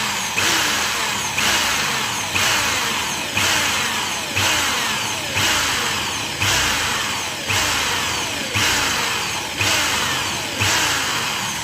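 Single-speed electric drill with a 4 mm bit drilling through a Suzuki GT250 carburettor body. The motor surges about once a second, its pitch sagging and the sound dying away after each surge.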